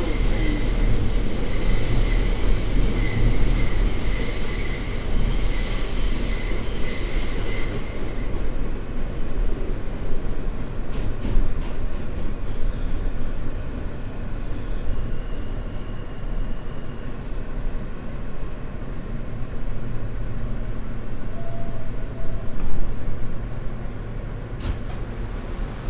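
New York City subway train heard from inside the car, its wheels and running gear rumbling steadily on the rails. A high, steady whine sounds over the rumble for the first eight seconds, then stops. The train slows into a station, and there is a sharp click near the end.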